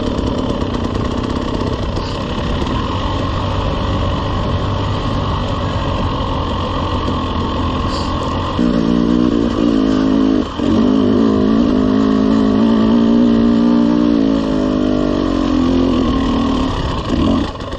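Two-stroke enduro dirt bike engine running at trail speed over a steady rush of wind. About a third of the way in, the engine note turns louder and higher, drops off briefly once, then holds steady and eases off near the end.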